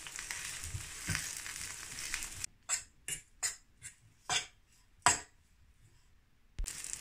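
Green chillies sizzling in hot oil in a pan. About two and a half seconds in the sizzle cuts off, and a metal spoon scrapes and stirs coarse ground spices through the chillies in about seven separate strokes, the loudest about five seconds in; the sizzle returns near the end.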